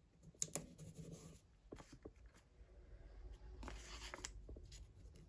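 Faint rustling and crinkling of paper sticker sheets being handled, with a few light clicks and taps as a sticker is pressed onto a planner page and another is peeled off its sheet.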